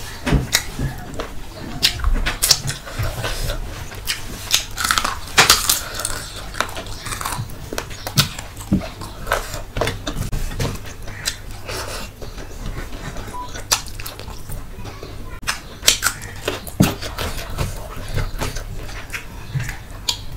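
Close-miked eating sounds: wet chewing and lip smacking, with fingers squishing rice and curry gravy, in irregular clicks and smacks over a steady low hum.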